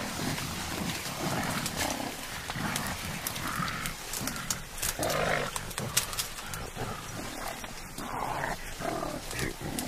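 Mountain gorillas moving through bamboo: stems cracking and rustling in many sharp snaps, with several short animal calls.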